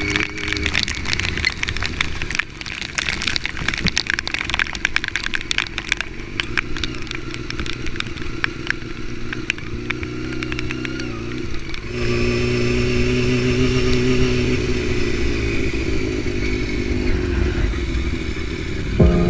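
Yamaha R6 inline-four engine running under way, with a dense rapid crackle of clicks over it for roughly the first twelve seconds. From about twelve seconds in the engine is louder and steadier, its pitch drifting down and back up.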